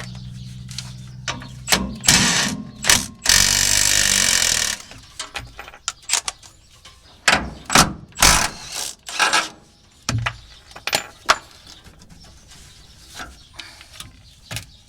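Hand tools working the bolts of an old rear shock absorber: a socket ratchet clicking and metal knocks and clinks, with a loud rushing burst a few seconds in.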